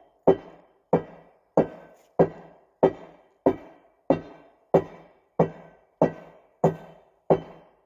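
Evenly paced ringing blows of steel on a bluestone slab, about one and a half a second, all of similar strength, as a line is struck across the stone to split it.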